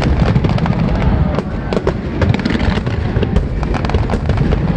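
Fireworks display at close range: dense, rapid bangs and crackles over a continuous low rumble of booming shells.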